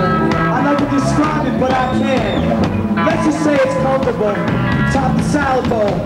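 Live rock band playing loudly, with drums, cymbals and electric guitars.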